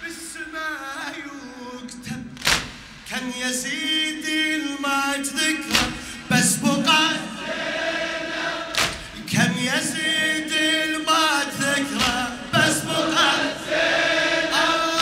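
Unaccompanied chorus of men chanting a Shia latmiya refrain together, with a loud sharp beat about every three seconds.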